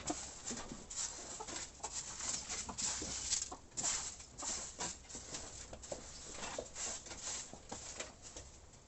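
A flock of chickens clucking and calling, many short overlapping calls, with some scratching and rustling.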